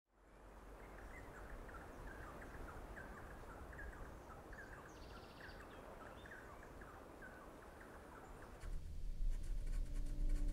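Outdoor ambience fading in from silence, with small birds chirping over and over and a short trill near the middle. Nearly nine seconds in it changes to a quieter room with a low rumble and the scratching of a dip pen nib on paper.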